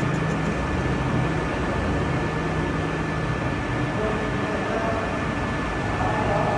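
Metal lathe running steadily: a continuous machine hum with a thin, steady high whine over it.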